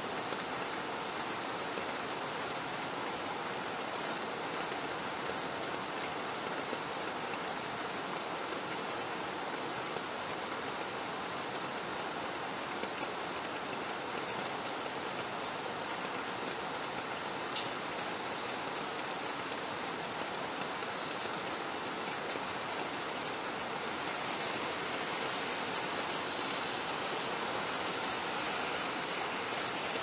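Steady rain falling, an even hiss that holds without breaks, with a single faint tick a little past halfway.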